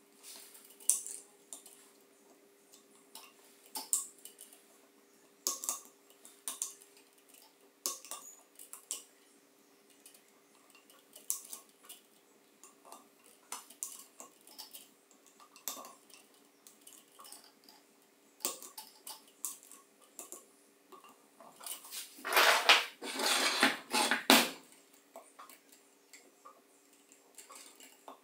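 Small metallic clicks and taps of hand work on a drill armature while it is rewound with copper wire, coming every second or so. About 22 seconds in there is a louder rasping stretch lasting about two seconds.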